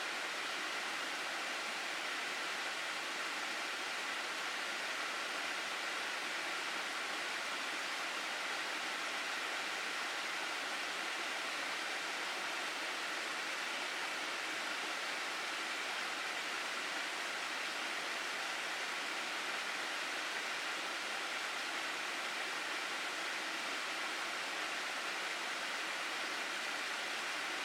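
Flowing water of a mountain stream in a gorge, a steady even rush with no change in level.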